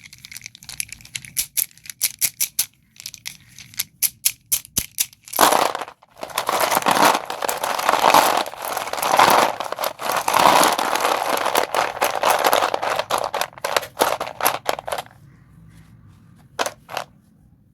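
Doms white chalk sticks being crushed and crumbled: a quick run of sharp snaps and crunches, then several seconds of dense, continuous crunching, and a couple of last crunches near the end.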